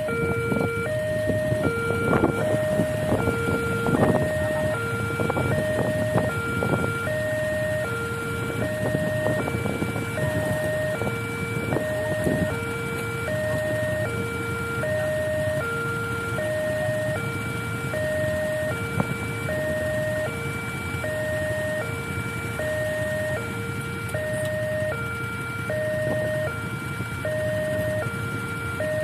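Railway level-crossing warning alarm sounding continuously: an electronic signal that alternates between two tones, each held about half a second. It warns that a train is approaching and the barrier is closed.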